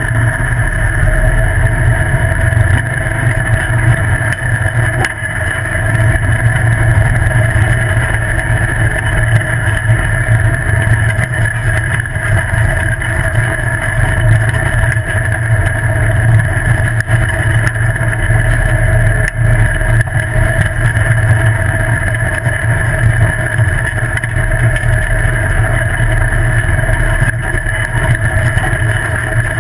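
Open off-road buggy running fast down a dirt road, heard from a camera mounted on its body: a steady engine drone with low rumble from the tyres on gravel and some wind. The revs stay fairly even.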